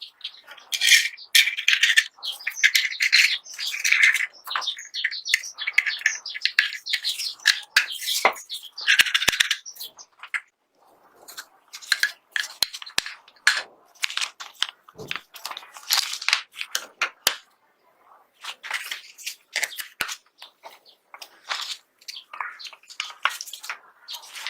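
Hands working on small pistol parts: irregular clicks, scrapes and rubbing strokes in bursts, with short pauses around 10 seconds and 17 seconds in.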